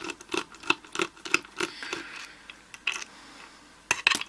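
Small metallic clicks and taps from an American A1100 padlock being handled and taken apart after picking: a run of light clicks about three a second for the first two seconds, then a few scattered taps.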